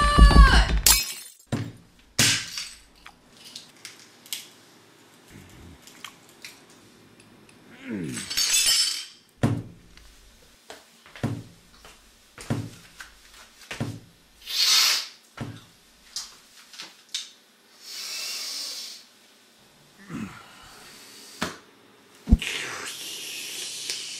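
Music that slides down in pitch and cuts off about a second in, followed by a string of separate knocks, thuds and clatters, some of them like things breaking, with a few longer noisy bursts in between.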